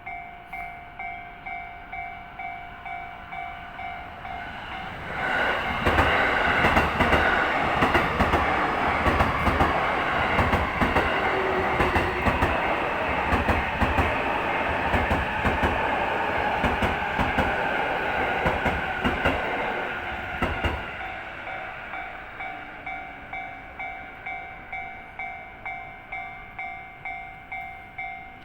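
Japanese railway level-crossing alarm bell ringing in a steady rhythm, about one and a half strikes a second. A JR East train passes over the crossing from about five seconds in until about twenty seconds in, its wheels clattering over rail joints and drowning the bell. The bell keeps ringing after the train has gone.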